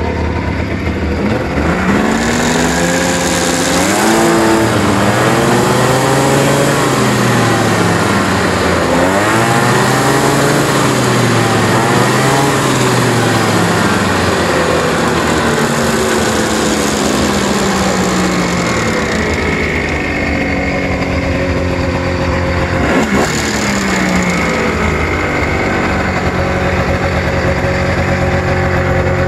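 1999 Arctic Cat Thundercat 1000's three-cylinder two-stroke engine revved up and down several times, spinning the track with the sled up on a lift, then falling back to a steady idle about two-thirds of the way through, with one short blip of throttle after that.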